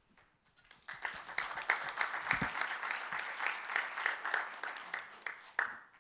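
Audience applauding, starting about a second in and dying away with a few last claps near the end.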